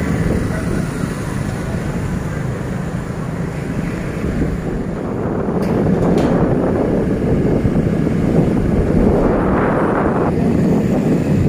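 Wind buffeting the microphone over a steady rumble of street traffic, without a break.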